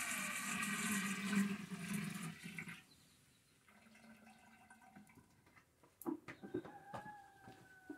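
Masa water poured from a plastic bucket into a cooking pot, a steady splashing gush that stops about three seconds in. A few light knocks follow near the end.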